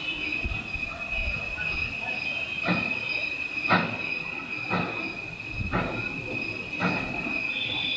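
Steady high-pitched whine under five sharp knocks, one about every second, starting about three seconds in: noise from the neighbouring workshop.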